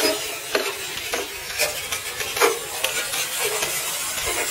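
Hot Wheels die-cast toy cars rolling down a long wooden plank track: a steady rolling rasp of small wheels on wood, broken by a handful of short, sharper scrapes or knocks.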